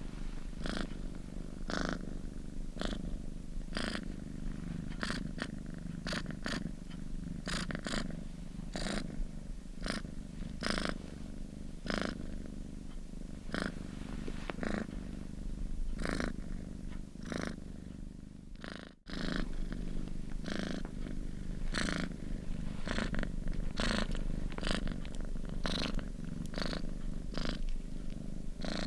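Domestic cat purring steadily, a low rumble with light crackles about twice a second. The sound cuts out for a moment about two-thirds of the way through.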